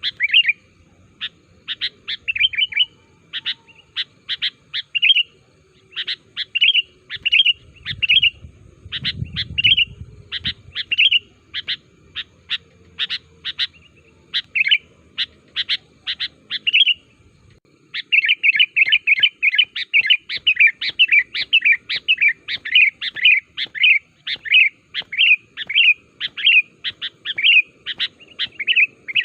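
Sooty-headed bulbul calling: a long series of short, bright chirps, spaced out at first, then coming in a fast, busy run about two-thirds of the way in.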